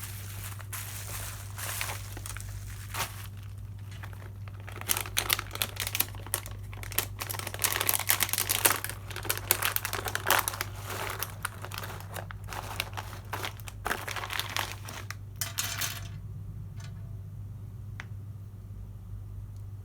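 Plastic packaging crinkling and rustling as it is handled and opened, with many small clicks, for about sixteen seconds, after which only a few faint clicks remain. A steady low hum runs underneath.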